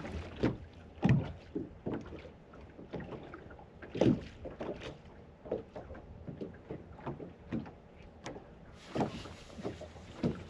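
Small waves slapping against a bass boat's hull in a light chop, with irregular slaps every half second to second and a half.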